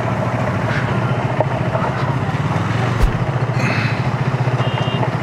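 Motorcycle engine running steadily, with a single sharp knock about three seconds in.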